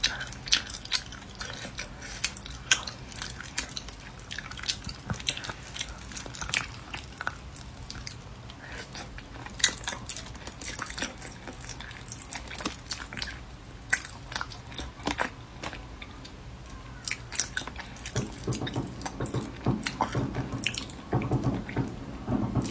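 Close-miked wet chewing and lip-smacking on boiled soft-shelled turtle, a stream of short sharp mouth clicks at an uneven pace that gets busier near the end.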